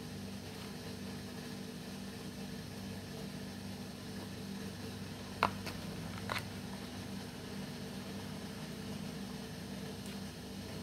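Steady background hum with two light clicks of plastic kitchenware about a second apart, a little past the middle, as a plastic spoon and small puto molds are handled.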